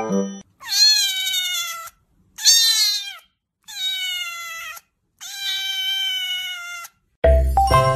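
Ginger-and-white kitten meowing four times, long high calls that each drop in pitch at the end. Music plays briefly at the start and comes back near the end.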